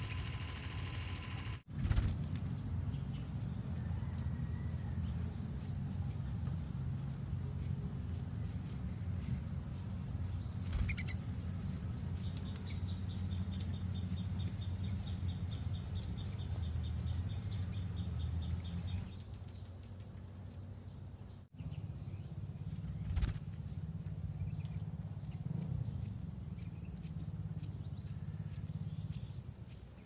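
Yellow-vented bulbul nestlings begging with rapid, evenly repeated high chirps, two or three a second, over a steady low rumble. The chirping pauses for a few seconds about two-thirds of the way through, then resumes.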